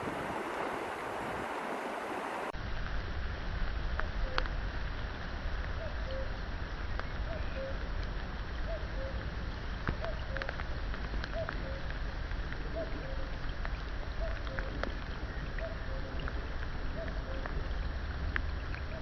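Heavy rain and rushing water. About two and a half seconds in, the sound changes abruptly to rain with scattered drops ticking close by over a low rumble. A faint short call repeats steadily about every two-thirds of a second through most of the rest.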